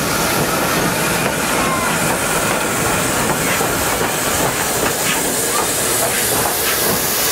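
LNER Peppercorn A1 class Pacific steam locomotive 60163 Tornado rolling slowly past with a steady loud hiss of steam. Several short knocks come from the wheels passing over rail joints in the second half.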